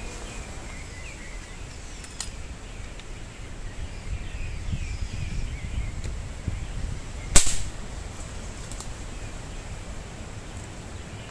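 Single air rifle shot, one sharp crack about two-thirds of the way through, over wind rumbling on the microphone and small birds chirping.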